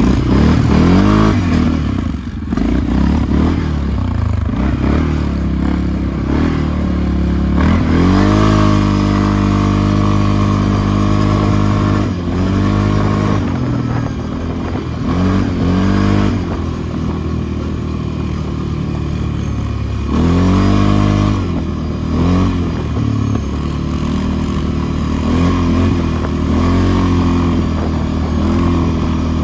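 ATV engine running while riding, its pitch climbing and dropping several times as the throttle is opened and closed.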